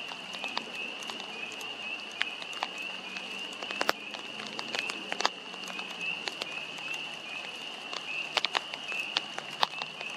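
A steady chorus of high calls, short notes repeating about three times a second, with scattered sharp clicks over it.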